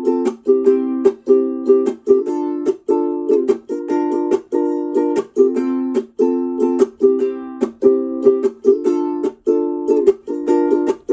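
A ukulele strummed in a steady rhythm, chord after chord, with no voice.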